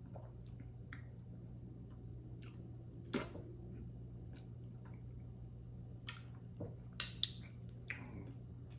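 Wet mouth smacks and clicks from eating okra soup with cornmeal fufu: a scattering of short sharp smacks, one about three seconds in and several close together near the end, over a steady low hum.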